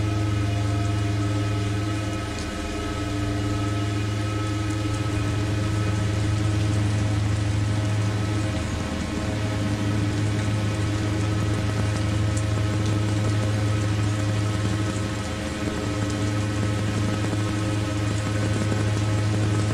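Lyra 8 synthesizer drone: a thick, steady low hum with several higher sustained tones layered over it, swelling and dipping slightly a few times.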